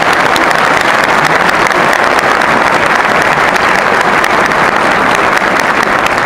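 Audience applauding steadily: many people clapping at once in a dense, even patter.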